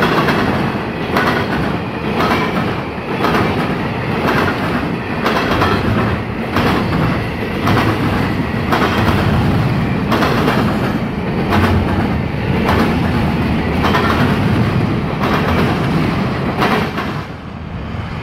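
Double-stack container well cars of a passing freight train rumbling by, with the wheels clacking over the rails in an irregular run of knocks. The sound drops away near the end as the last car passes.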